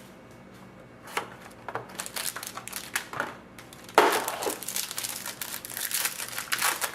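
Trading-card pack wrapper being torn open and crinkled in irregular bursts, with a sharp, louder tear about four seconds in.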